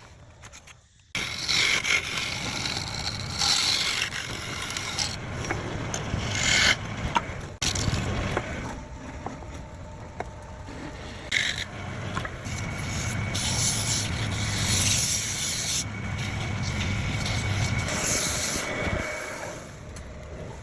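Wood lathe running while a turning tool scrapes and cuts into the spinning wood, a noisy scraping over a low motor hum. It starts about a second in and changes abruptly several times.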